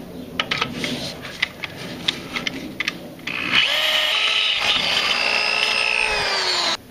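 Electric drill boring a pilot hole through a steel reinforcement plate into the unibody frame rail. At first there is irregular clicking and scraping as the bit bites. About halfway through, the motor settles into a steady whine under load, which cuts off abruptly near the end.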